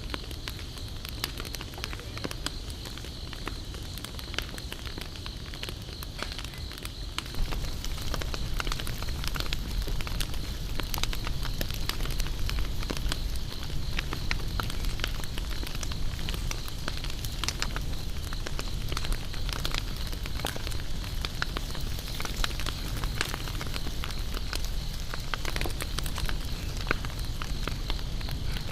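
Wood campfire crackling and popping with many sharp snaps over a low rustle of flames, which gets louder about seven seconds in. A steady high-pitched insect drone runs behind it.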